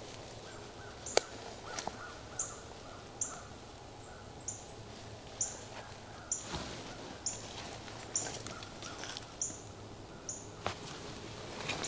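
A bird repeating a short, high, down-slurred call note about once a second, over a quiet woodland background. A single sharp snap about a second in is the loudest sound, with a few fainter clicks later.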